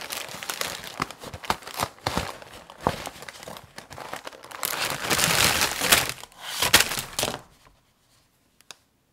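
Individually wrapped snack packets, Orion Custard cakes in crinkly plastic-foil wrappers, crinkling and rattling as they are tipped out of their box onto a pile of other wrapped snacks. There is a dense rush of crinkling in the middle, then a few last clicks before it stops.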